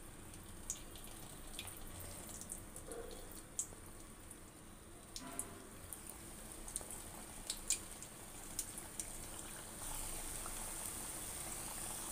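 Rolled maida-dough pieces deep-frying in hot oil in a kadai: a faint sizzle with scattered small pops and crackles. The sizzle grows steadier and a little louder about ten seconds in.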